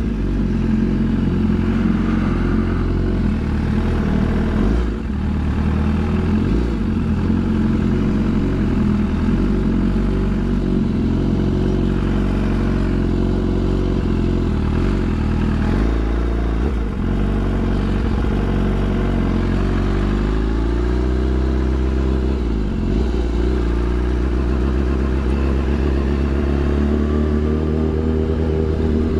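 BMW S1000RR's inline-four engine running at low road speed as the bike rolls along, its pitch dropping and then climbing again about two-thirds of the way through as the throttle is eased off and reopened.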